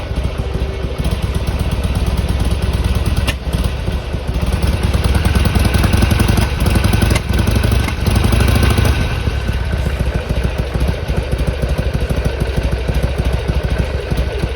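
Harley-Davidson Sportster XL883R's V-twin idling while warming up from cold, with a sharp click about three seconds in. It runs louder from about four seconds in and drops back to idle about nine seconds in. The owner is troubled by the engine sneezing, spitting back through the intake, during warm-up.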